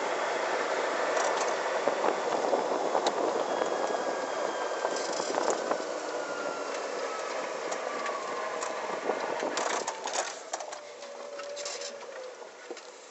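Wind and tyre noise from an open electric buggy driving on a street, with scattered rattles from the chassis and a faint electric-motor whine that slowly falls in pitch as it slows. The noise drops away near the end as the buggy comes to a stop.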